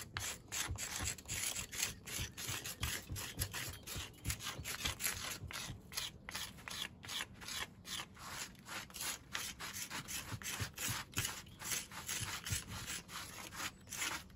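Gloved hands working pointing tools over the mortar joints of a stone wall: quick, irregular scraping and rubbing strokes, several a second, as the joints are finished.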